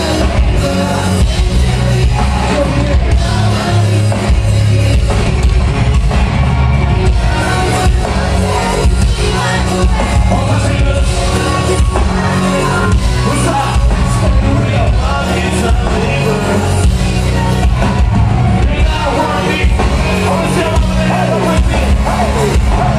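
A rap song performed live and played loud through a venue PA: a heavy bass beat with vocals over it.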